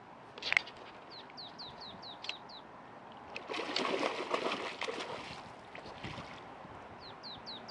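A splash on the water's surface, lasting about a second and a half from roughly three and a half seconds in. Before it comes a sharp click about half a second in. A small bird gives quick runs of short descending chirps, about five a run, twice.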